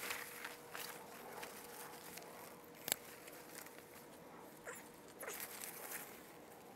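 Leaves and stems rustling and crackling as someone moves through dense broad-leaved plants, with one sharp click about three seconds in.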